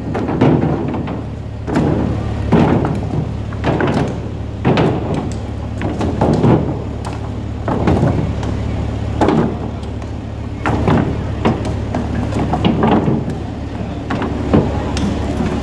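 Whole mahi-mahi being hooked and dragged into a stainless-steel weighing bin, their bodies thudding and sliding against the metal every second or two, over a steady low hum.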